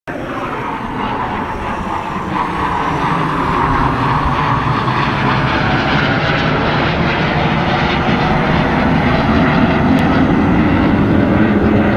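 Aircraft flying overhead: a loud rushing engine noise that grows steadily louder through the clip.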